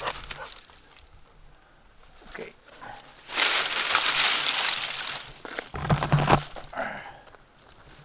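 Dry brush and dead leaves rustling and crackling as a dog pushes through the scrub, loudest from about three to five and a half seconds in, with a few low bumps just after.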